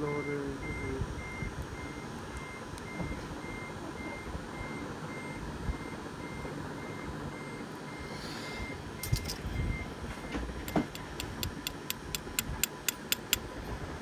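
Fast, even beeping at one high pitch, about two to three beeps a second, stopping about ten seconds in. It is followed near the end by a quick run of sharp clicks.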